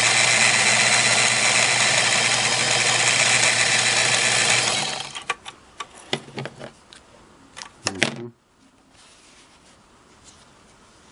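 Singer Model 237 sewing machine running at speed, sewing a zigzag stitch through folded muslin, with a steady motor hum under the needle clatter; it stops suddenly about five seconds in. A few sharp clicks and knocks follow as the fabric is drawn out from under the presser foot.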